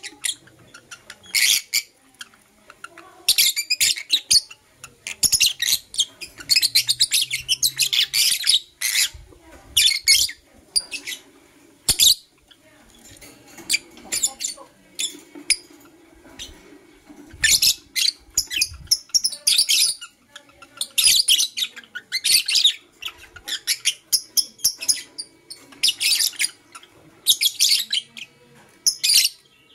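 Lovebirds chirping in repeated bursts of high, rapid, harsh chirps, with short pauses between the bursts. A few soft low knocks come in the middle.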